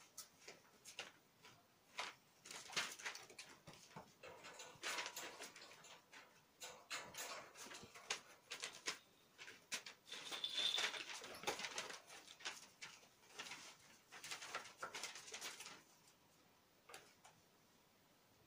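Kittens scrambling and play-fighting on a quilted floor sheet: faint, irregular rustles, scratches and light paw thumps, with a brief high squeak about ten seconds in.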